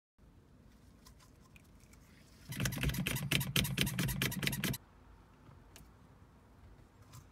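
WRD Orange Bat glass-removal winder being handled and pressed onto the inside of a windshield: a rapid run of sharp clicks and rattles with a low thudding underneath, lasting about two seconds, from about a third of the way in.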